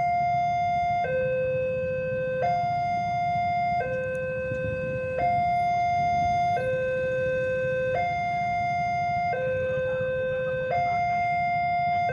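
Two-tone electronic warning alarm, switching back and forth between a higher and a lower tone about every one and a half seconds, over a steady low rumble.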